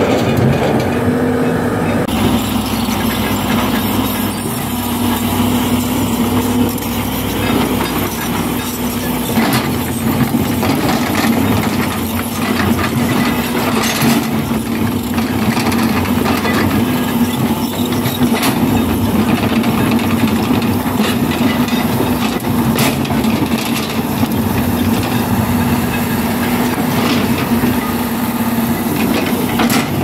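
Doosan Solar 500LC-V excavator running under load, its diesel engine giving a steady hum, with a few sharp knocks and scrapes as the bucket works in the rock pile.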